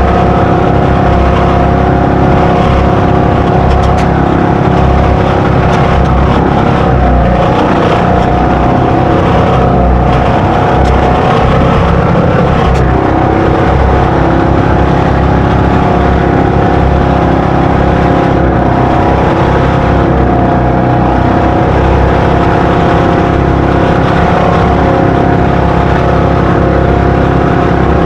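Twin engines of a fiberglass outrigger boat running steadily under way, one even pitch held throughout, mixed with the rush of spray and wind.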